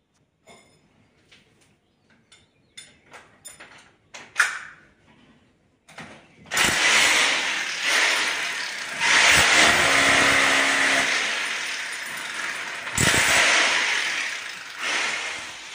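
A few light clicks and taps, then an electric drill boring into the plastered wall, loud and grinding from about six and a half seconds in. It breaks off briefly near the end and starts drilling again.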